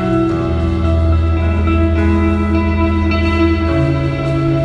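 Instrumental post-rock band playing live: layered guitars ring out sustained chords that change every second or so, over a deep bass note held for about three seconds.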